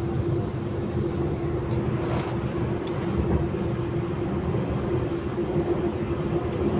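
An Auckland AM class electric multiple unit running at speed, heard from inside the carriage: a steady rumble of wheels on track with a constant hum over it.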